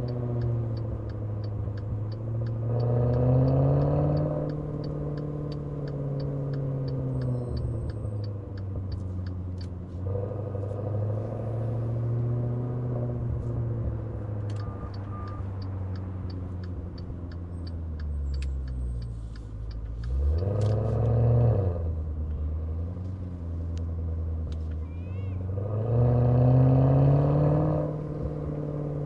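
Maserati Levante Trofeo's Ferrari-built twin-turbo V8 in city driving, its exhaust note rising in pitch under several accelerations and falling as it eases off. About two-thirds of the way in, it drops low, near idle, then climbs sharply again. A regular ticking sounds in the first few seconds.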